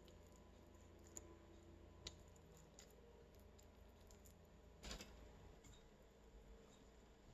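Near silence with a few faint clicks and soft taps from hands packing rice-and-meat filling into a hollowed zucchini, and one slightly louder knock about five seconds in.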